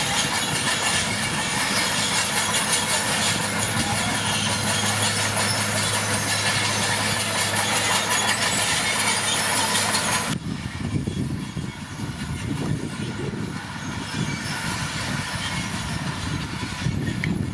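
Crawler bulldozer's diesel engine running under a steady drone, with a dense metallic clatter of its steel tracks. About ten seconds in, the sound changes abruptly to a quieter, lower engine rumble.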